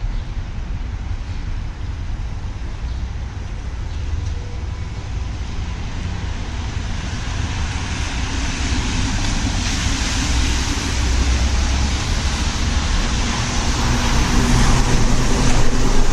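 Street traffic: a steady hiss of road noise, with a vehicle's low engine hum growing louder through the second half as it draws near.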